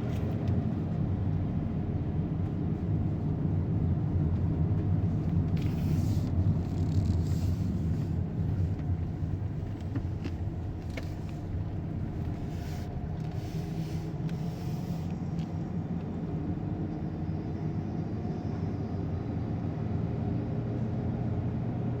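Steady low rumble of motor vehicles, with a few brief hisses in the middle.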